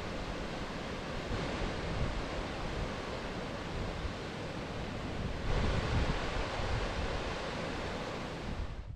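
Fast, swollen peat-brown river rushing over rocks in steady white water, a little louder about halfway through, with some wind on the microphone.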